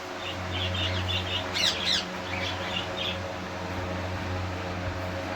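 Caged parrots chirping: a quick run of short high chirps, two louder sharp calls falling in pitch about a second and a half in, then more chirps, over a steady low hum.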